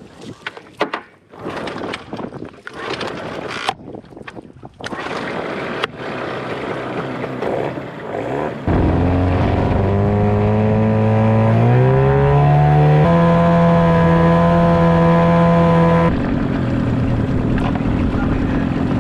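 Scattered knocks and rattles of handling in an inflatable dinghy, then a small dinghy outboard motor comes in loud, just before halfway. Its pitch steps up twice as it is throttled up, and a little past three quarters it drops to a lower, steadier run.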